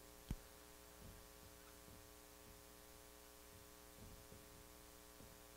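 Near silence: a low, steady electrical hum of room tone, with a faint click shortly after the start.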